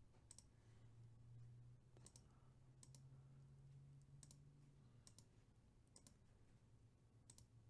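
Faint computer mouse clicks, each a quick press-and-release pair, coming irregularly about once a second while an online randomizer is worked, over a faint low hum.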